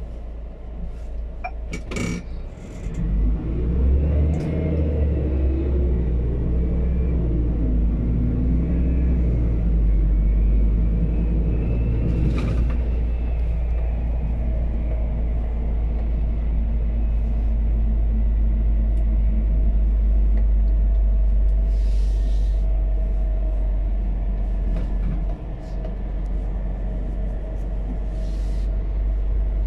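Scania P280 biogas truck heard from inside the cab while driving: a deep, steady rumble of engine and road. The rumble swells about three seconds in as the truck pulls away, with the engine note rising and falling for a few seconds after. A few short clicks and rattles come from the cab.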